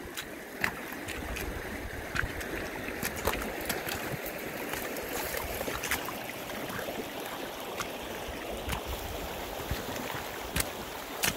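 A shallow mountain river running steadily, with scattered sharp clicks and knocks over it.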